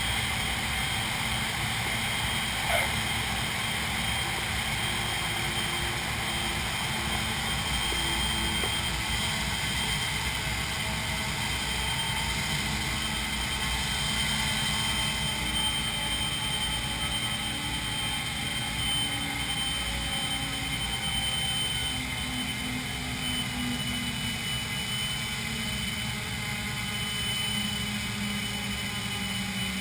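A B-29 Superfortress's four Wright R-3350 radial engines running steadily as the bomber taxis, heard from inside the cockpit. A constant high whine sits over the engine noise, and the engine note drifts slightly in pitch.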